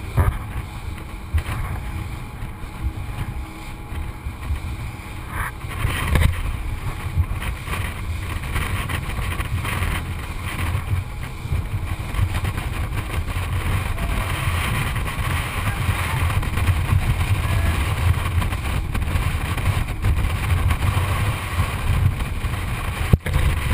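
Rigid inflatable boat running at speed over choppy sea: a steady low engine rumble mixed with rushing water and wind, muffled through a waterproof camera housing. A couple of sharp thumps sound, one about six seconds in, and it grows louder in the second half.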